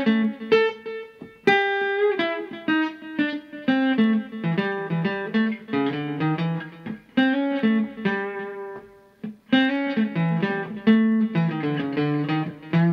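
Acoustic guitar playing single-note blues licks from the MixoBlues scale in quick runs, phrase after phrase with short breaks between them.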